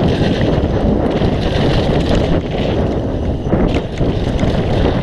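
Wind rushing over an action camera's microphone as a mountain bike descends a dry dirt trail at speed, with tyre noise and a few short knocks from the bike over rough ground.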